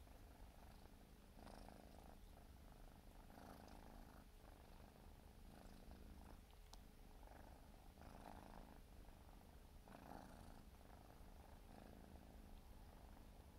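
Faint, steady purring of a 4-month-old Siberian kitten, swelling and easing with each breath every second or two.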